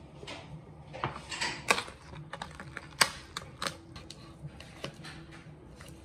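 Kitchen knife knocking and clicking against a wooden cutting board while carving cooked bird meat off the bone: a handful of sharp, separate knocks, the loudest about two and three seconds in, over a low steady hum.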